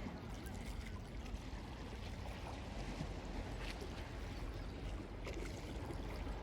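Mediterranean sea water lapping and gurgling at the shore, a steady wash of small waves.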